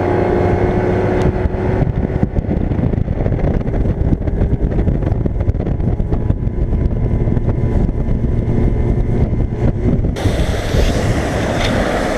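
Bass boat's outboard motor running at planing speed, with wind rushing over the microphone. About ten seconds in, a loud hiss of water spray from the wake along the hull joins in.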